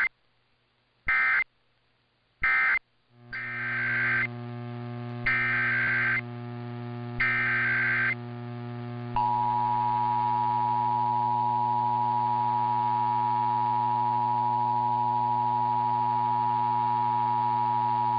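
Emergency Alert System data and alert tones. First come two short digital end-of-message bursts about a second and a half apart. A low hum then comes in, and over it three longer SAME header data bursts about two seconds apart. From about nine seconds in, the two-tone EAS attention signal holds as a steady dual tone.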